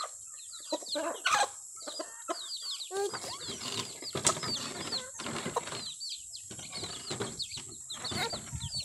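Chicks peeping: a rapid run of short, high cheeps that each fall in pitch, mixed with some lower clucking from the adult chickens and patches of rustling noise.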